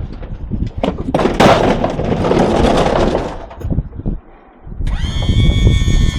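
Knocks, then a loud metallic scraping clatter as a scrapped washing machine is shoved and dragged into place on a loaded truck bed. Near the end a steady pitched mechanical drone starts.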